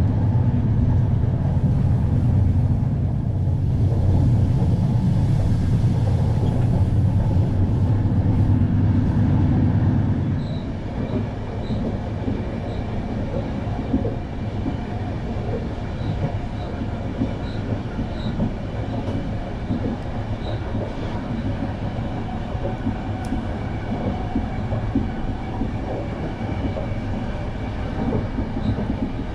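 A Trenitalia Intercity Notte passenger train running at speed on the rails, heard from inside: a steady low rumble of the wheels and coach. About ten seconds in, it drops to a lighter rattle with faint clicks.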